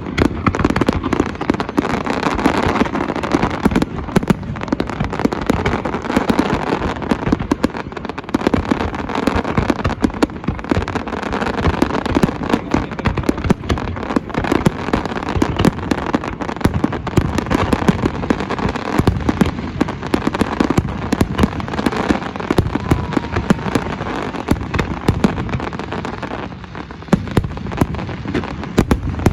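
Fireworks going off in a dense, continuous barrage of bangs and crackles with no pause.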